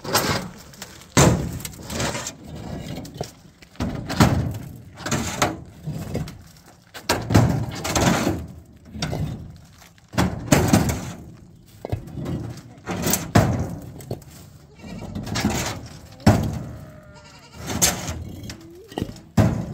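Hollow concrete blocks knocking and scraping against each other and the steel truck bed as they are lifted out and set down, a sharp clunk every second or two. Bleating comes in between the knocks.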